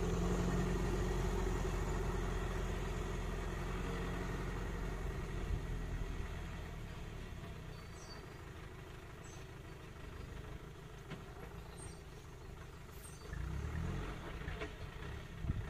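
Motor vehicle engine idling: a steady low rumble, strongest over the first few seconds, then easing off, with a short swell in level near the end.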